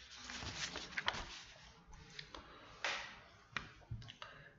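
Faint scattered clicks and taps from a computer mouse being clicked and scrolled, with a soft noise in about the first second.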